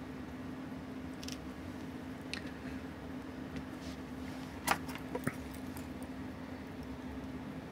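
A handful of light metal clicks from steel tweezers and tiny parts on a Seiko 6138 chronograph watch movement, the sharpest a little past the middle, over a steady low hum.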